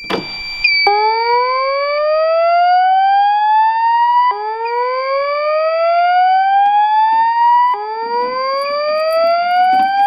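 A voice evacuation system sounding its slow-whoop evacuation tone through a speaker/strobe: three slow rising sweeps, each about three and a half seconds long, starting about a second in, over a steady high-pitched tone. It opens with a short clatter as the pull station's handle is pulled down and latches.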